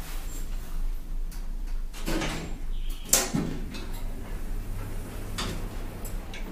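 Automatic glass sliding doors of a 1993 Tepper diagonal traction elevator car opening at a landing: a few clicks and a sharp clack about three seconds in, then a steady low hum as the doors open.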